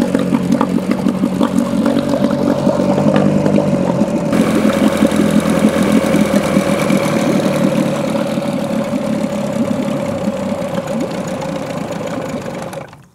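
Small Johnson two-stroke outboard running steadily in a test barrel of water. It gets brighter and louder about four seconds in as the cowl comes off, then cuts out abruptly shortly before the end, in a run that was meant to last until the fuel was used up.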